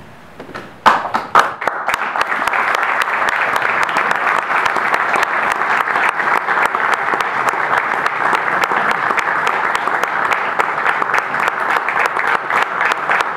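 Audience applauding: a few first claps about a second in, quickly swelling into steady, dense applause.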